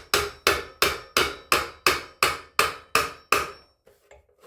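Hammer blows driving a part of a homemade potter's wheel into place, a dozen or so evenly spaced strikes at about three a second, stopping about three and a half seconds in.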